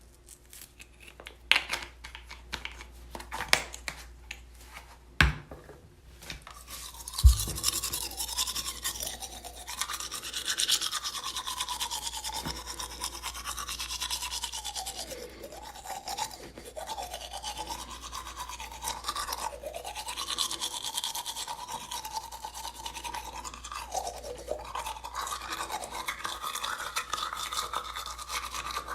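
A toothbrush scrubbing teeth. The first seven seconds hold scattered clicks and taps, with two sharp knocks about five and seven seconds in. From then on the brushing runs continuously, its scrubbing wavering up and down in pitch.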